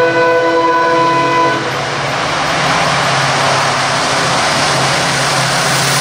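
EMD WDG-4 (GT46MAC) diesel locomotive sounding its multi-tone horn, held for about a second and a half, then the loud rush of the locomotive and its coaches speeding past, with the diesel engine's steady low hum underneath.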